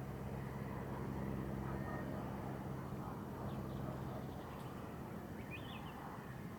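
A low, steady engine hum that fades out after about four seconds over outdoor background noise, with a couple of short bird chirps in the second half.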